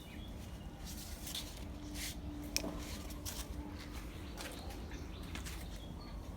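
Quiet outdoor background: scattered short rustles and clicks, a faint steady hum, and a few brief high bird chirps.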